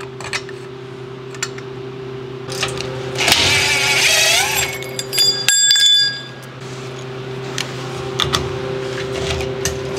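Power drill running in a short burst, its pitch wavering under load, followed by light metallic clinks and ringing of loose hardware, over a steady low hum.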